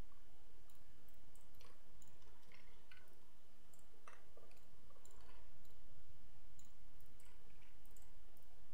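Irregular, scattered clicks of a computer mouse, over a low steady background hum.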